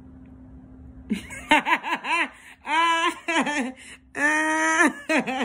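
A woman laughing in high-pitched giggling bursts, starting about a second in, with one longer held note about four seconds in.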